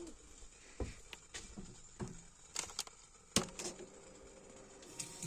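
A few light, scattered clicks and knocks from a hand handling things at a small camper kitchen sink and reaching for its faucet lever.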